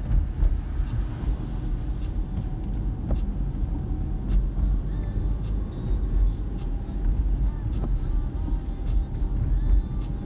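Car driving along a plowed, wet road, heard from inside the cabin: a steady low rumble of tyres and engine, with a few faint ticks.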